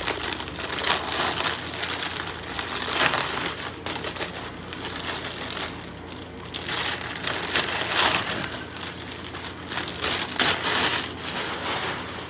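Plastic packaging crinkling and rustling in irregular bursts as it is handled and opened.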